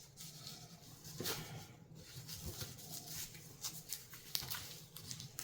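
Faint handling noises: scattered light clicks and soft rustles of small stones and packaging being picked up and moved about.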